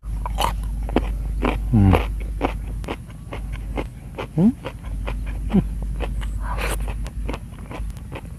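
Close-miked eating sounds: a person chewing a mouthful of raw young jengkol and side dishes eaten by hand, with many sharp wet mouth clicks and crunches. A few short voice-like sounds stand out, one falling in pitch about two seconds in and one rising a couple of seconds later.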